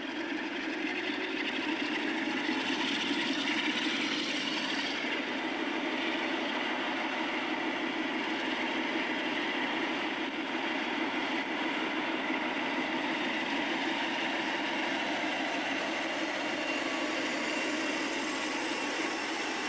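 Diesel locomotive engine running steadily. A thin high whine rises slowly near the end.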